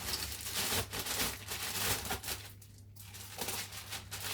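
Crinkling and rustling of a dry bag's stiff fabric as it is handled and opened out, irregular and busiest in the first couple of seconds, then sparser.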